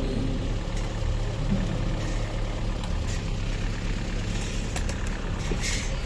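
An engine running steadily at idle, a low even hum, with a few clicks and a short hiss near the end.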